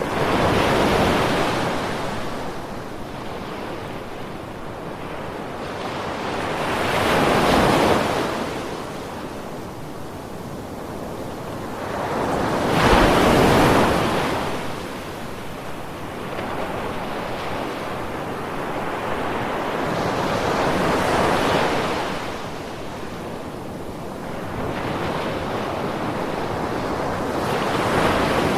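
Ocean waves breaking on the shore: a steady wash that swells and falls about every six to seven seconds, five surges in all, the strongest about halfway through.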